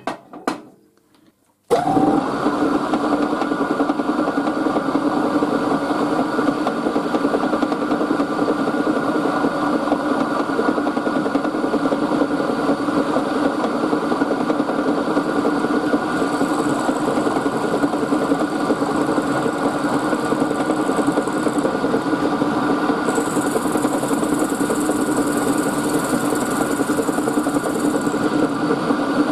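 A small vertical milling machine starts about two seconds in and runs steadily, its end mill facing off a brass block. A thin, high hiss comes in twice in the second half as the cutter works the brass.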